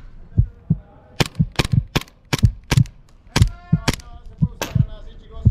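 Airsoft pistol firing about a dozen quick single shots in an uneven string, each a sharp crack, with softer dull thumps in between.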